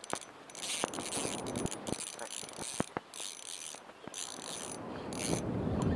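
Spinning reel being cranked to retrieve a lure, its gears whirring in about six short bursts with pauses between, and a few sharp clicks.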